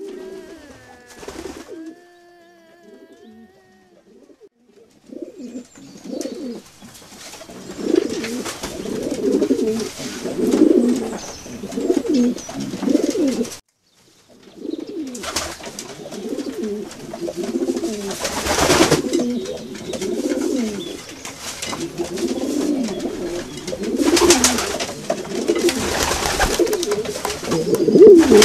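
Pigeons cooing over and over in low, wavering notes, with a brief break about halfway through. A couple of louder whooshing noises come in the second half.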